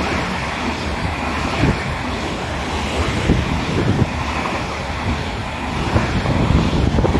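Greater Anglia Stadler FLIRT multiple-unit train running past along the platform close by: a steady rumble and rush of wheels and air, with wind buffeting the microphone.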